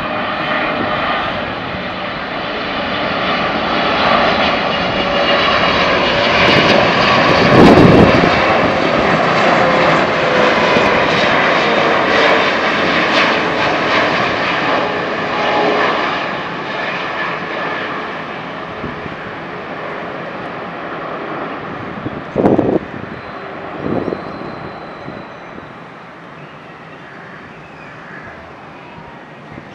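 Emirates Boeing 777 airliner on landing approach passing low overhead. Its jet engine noise, full of steady whining tones, builds to a peak about eight seconds in, then slowly drops in pitch and fades away as the plane moves off. Two short thumps come about two-thirds of the way through.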